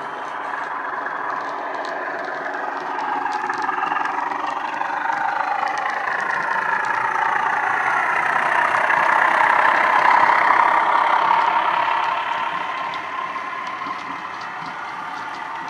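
Model Class 14 diesel locomotive's DCC sound decoder playing a Paxman Ventura diesel engine sound through its onboard speaker as the model runs on the track. It grows louder to a peak about ten seconds in as the loco passes, then fades, with light clicking throughout.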